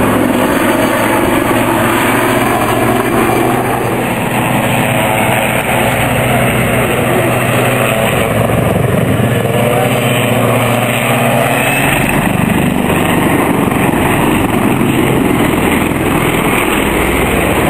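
Two Westland Lynx helicopters in close formation, their rotors and turbine engines running steady and loud as they fly past overhead.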